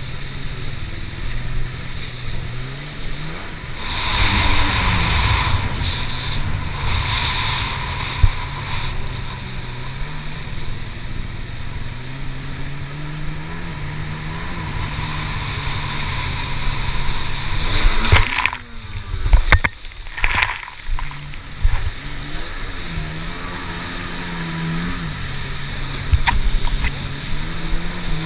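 Kawasaki stand-up jet ski's engine running at speed, its pitch rising and falling with the throttle, over rushing spray and wind. About two-thirds of the way through, the sound breaks into a run of sharp thumps with brief drop-outs.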